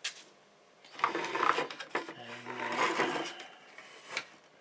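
Close-up handling noise of small electrical wires being worked by hand: a click, then a couple of seconds of rubbing and scraping, and a few more clicks near the end.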